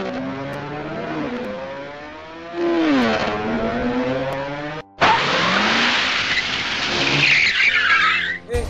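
A vehicle engine revving past twice, its pitch falling each time. After a sudden break it is followed by a louder rush of engine noise, with a harsh screech of skidding tyres near the end.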